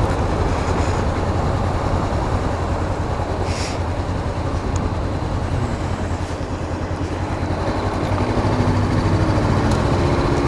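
Honda CBR500 motorcycle's parallel-twin engine running steadily as the bike rolls at low speed, with a low rumble on the camera mic. It picks up a little near the end.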